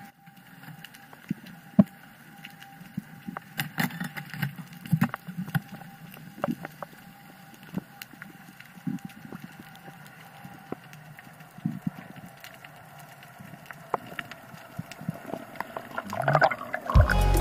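Underwater ambience: scattered sharp clicks and crackles over a faint steady hum and water noise. Music comes in near the end.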